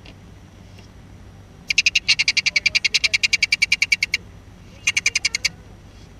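An animal's rapid pulsed trill, about ten clicky pulses a second, in two bouts: a long one of about two and a half seconds, then a short one about a second later.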